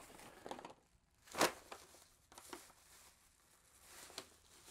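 Bubble wrap and plastic packaging rustling and crinkling in scattered bursts as a wrapped item is handled, with one louder, sharper crinkle about a second and a half in.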